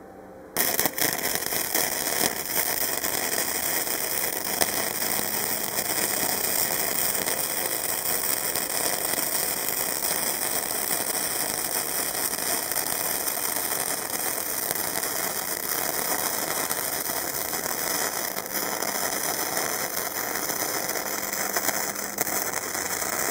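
Harbor Freight Easy-Flux 125 flux-core wire-feed welder arc crackling steadily as a continuous bead is run where a stainless steel V-band clamp overlaps mild steel exhaust pipe. The arc strikes about half a second in and cuts off just before the end.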